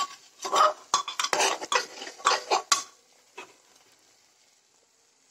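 Metal spoon scraping and clinking against steel cookware as ground masala paste is scraped into the pan and stirred into the fried spices. It goes in quick strokes for about three seconds, then stops.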